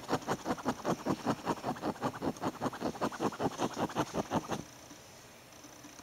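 Pet rat scratching: a fast, even run of scratches, about eight a second, that stops suddenly about four and a half seconds in.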